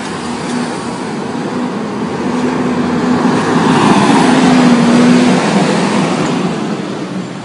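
City street traffic with a motor vehicle passing close by, its engine growing louder to a peak about four to five seconds in and then fading.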